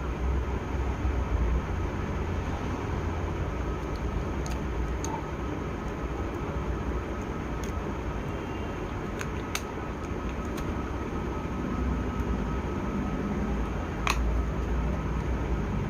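Steady low background rumble with a faint thin hum, and a few scattered light clicks; the sharpest click, with a brief ring, comes near the end.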